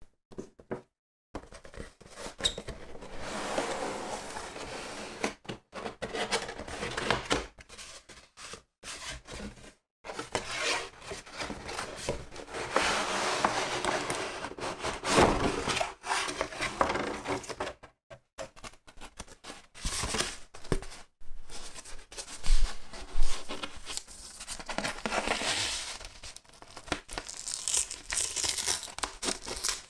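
Cardboard toy box and its plastic packaging being opened and handled: irregular rustling and crinkling of cardboard, paper and plastic wrap, with a couple of sharp knocks about two-thirds of the way through.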